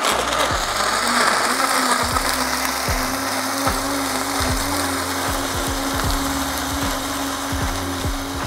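Countertop blender running loud, blending a miso, ginger and lime sauce: the motor comes up to speed in the first second, then holds a steady pitch over the churning of the liquid.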